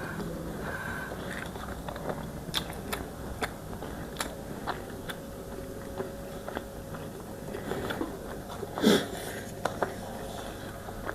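Close-up mouth sounds of someone eating eggs: chewing with scattered wet clicks and smacks, the loudest a little before nine seconds in. A faint steady hum runs underneath.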